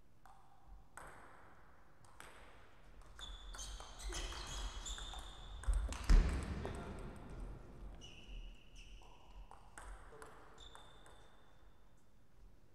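Table tennis rally: a table tennis ball clicking off bats and bouncing on the table, each hit a sharp click with a short high ping. The hits come faster and louder up to a loud burst about halfway through as the point ends. After that come a few scattered single bounces.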